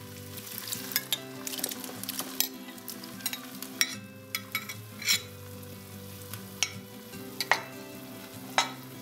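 Chopped tomatoes sizzling in hot olive oil and sautéed onions in a pot, with a handful of sharp taps as a wooden spatula and the bowl knock against the pot.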